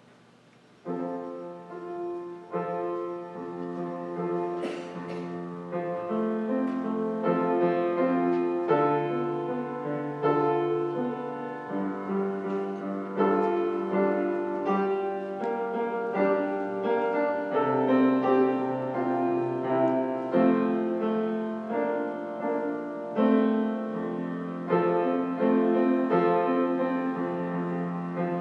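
Piano playing slow, quiet-paced reflective music, chords and melody notes changing every second or two, starting about a second in.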